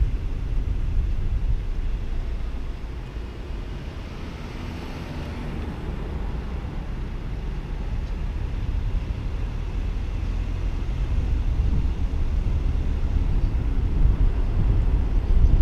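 Low, steady rumble of a car driving slowly through town streets, road and wind noise with no distinct events; it eases off a few seconds in and builds again toward the end.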